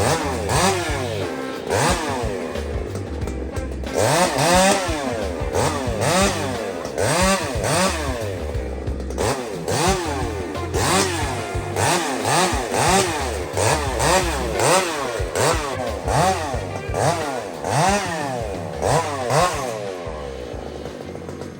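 Two-stroke chainsaw cutting wood, its engine revved up and dropping back over and over, about once a second, in a wood with steel nails that the operator says dulled the chain.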